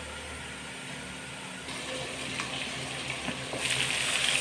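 Pork belly slices frying in their own rendered fat in a lidded wok, a steady sizzle muffled by the lid. About three and a half seconds in the lid is lifted and the sizzling becomes louder and brighter.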